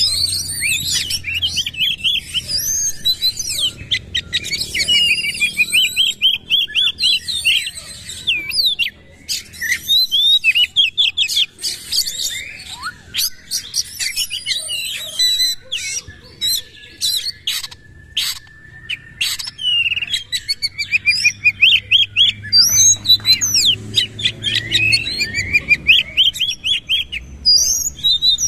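Oriental magpie-robin (kacer) singing a loud, fast, varied song of rapid trills and sharp whistles, delivered in the rapid-fire 'nembak' style, with a run of sharp clicking notes about halfway through.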